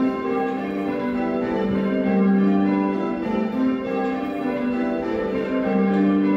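A ring of six Whitechapel church bells, cast in 1978 with the tenor in G, ringing call changes. The bells strike one after another, heard from the ringing chamber below them.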